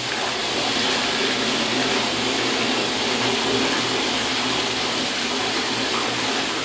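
Hering stainless steel toilet flushing from its sensor flushometer: a steady, loud rush of water swirling through the bowl, beginning to ease near the end.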